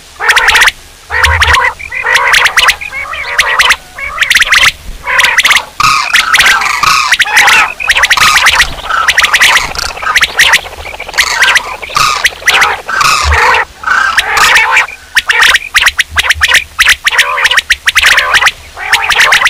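Common quail calling over and over: a loud, dense run of rapid calls with only brief breaks. It is a quail-hunting lure recording.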